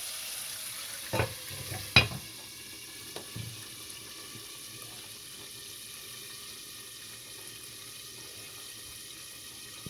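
Chicken pieces deep-frying in oil in a pot, a steady sizzle. A couple of sharp knocks land about one and two seconds in, the second the louder.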